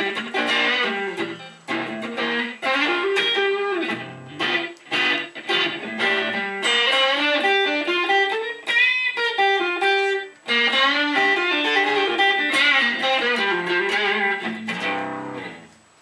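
Stratocaster-style electric guitar playing blues lead lines through an overdrive pedal: picked single notes and short runs, with a wavering bent note about nine seconds in. The playing dies away just before the end.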